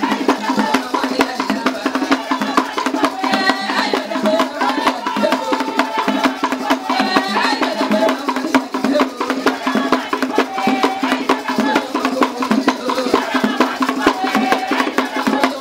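Traditional Vili Tchikoumbi dance music: fast, dense percussion with sharp wood-block-like clicks under voices singing.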